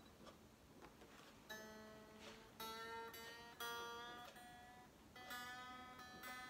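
Faint electric guitar string plucked about five times, each note ringing for about a second, while the string is being tuned at the headstock.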